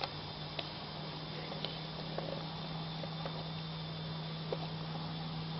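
Smoke grenade hissing steadily as it pours out thick white smoke, with a few faint ticks and a steady low hum underneath.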